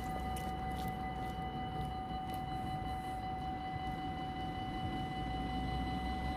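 Dutch level-crossing warning bells sounding continuously, a steady high ringing tone with no break, signalling that the crossing is closed for an approaching train. A low rumble of wind and road traffic lies underneath.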